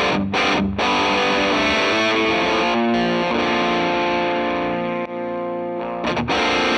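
Electric guitar played through the AmpliTube 4 Mesa/Boogie TransAtlantic TA-30 amp simulation, distorted: a chord riff with two quick stops in the first second, then chords left ringing over the last couple of seconds with one brief break.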